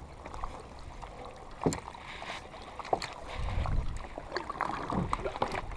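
Water lapping against a kayak's hull as it drifts, with a few light knocks and clicks from the boat and gear.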